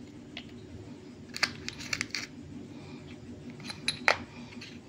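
A plastic compartment parts box holding steel bolts being handled: light clicks and metallic clinks, a cluster about a second and a half in and another near four seconds, the sharpest just after four seconds, over a low steady hum.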